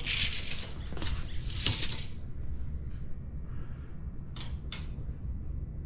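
Steel tape measure drawn out along a metal tray frame: about two seconds of scraping rush, then two light clicks a little after four seconds in and another at the end.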